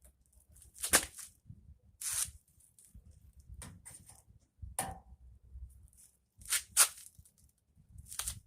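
Hammer prying at the sheet-metal panel of a laundry appliance: about six sharp knocks and clatters at irregular intervals, the loudest about a second in and just before seven seconds, with scraping and rustling between.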